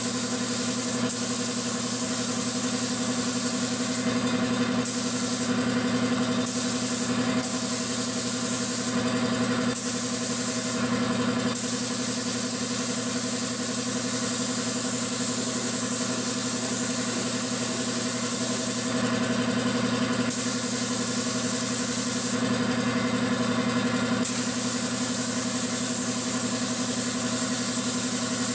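Air compressor motor running steadily, under the hiss of a gravity-feed paint spray gun. The spray hiss stops briefly several times.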